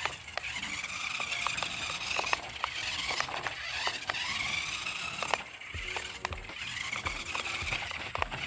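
Small electric drive motor of a BEZGAR RC crawler car whining as it is driven, the pitch rising and falling several times with the throttle, with scattered ticks and clicks.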